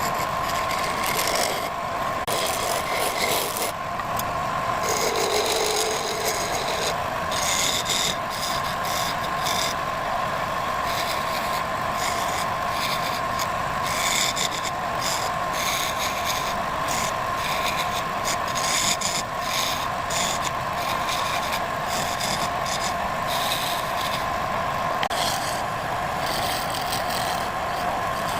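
Woodworking machine running with a steady motor whine, with irregular rasping and scraping as wood is worked against it.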